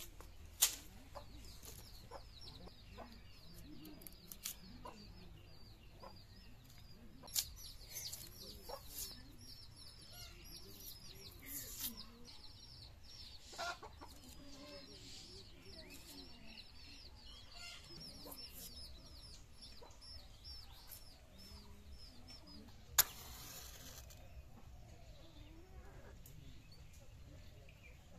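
Chickens clucking with chicks peeping over and over in short, high calls, and a few sharp knocks, the loudest about a second in and another near the end.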